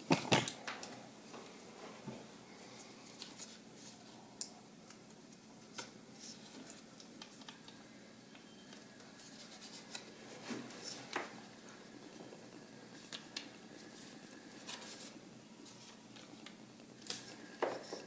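Scattered small plastic clicks and scrapes as the hard disk's SATA connector in a ThinkPad P50's drive bay is worked loose by hand with a small pry tool. There is a sharp click just after the start and fainter clicks spread out after it; the connector is a tight fit and slow to come off.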